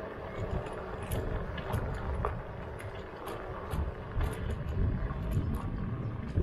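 Slidefox NT electric kick scooter riding along: steady wind rumble on the microphone with tyre noise and frequent light clicks and rattles.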